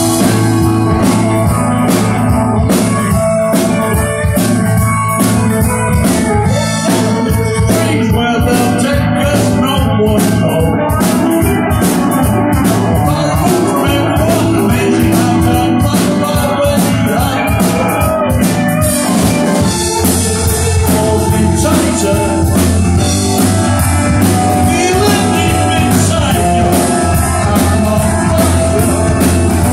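Live rock band playing loud and steady: distorted electric guitars, electric bass and a driving drum kit, with a male lead vocal at the microphone.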